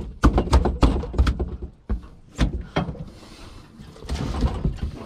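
Quick knocks and thumps, several a second for about two seconds, then two single thumps and a lull, with smaller knocks near the end. They come from a large freshly caught halibut being handled in a bin on a boat deck.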